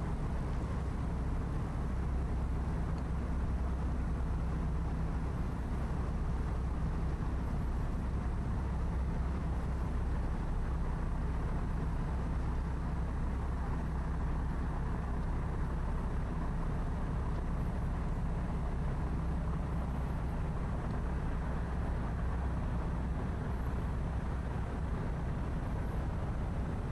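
Steady low drone of distant city traffic and engines, with a constant low hum that neither rises nor falls.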